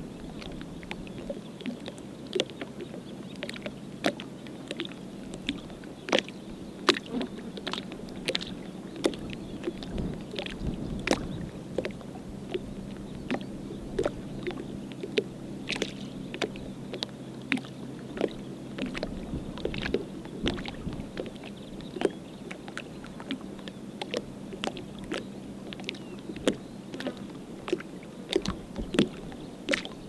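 Calm sea water lapping gently at the shore, with frequent small irregular clicks and splashes. A faint low steady hum sounds under it for roughly the first two-thirds and then fades out.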